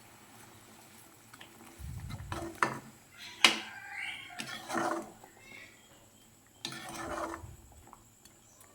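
Scattered light clinks and knocks of a spoon against a cooking pot, with soft scraping in between; the sharpest clink comes about three and a half seconds in.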